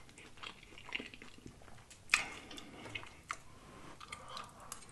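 Close-miked mouth sounds of eating: chewing with wet smacks and clicks, one sharper smack about two seconds in.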